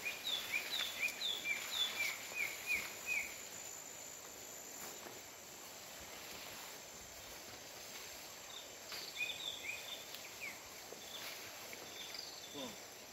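Wild green leafbird (cucak ijo) singing: a quick string of short, clear, high notes for about three seconds, then another run of notes later on. A steady high insect drone continues underneath.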